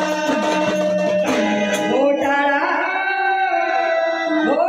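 Live Marathi devotional folk song (gavlan) sung with drum accompaniment: held, ornamented vocal notes over steady sustained tones, with sharp drum strokes about a second and a half in.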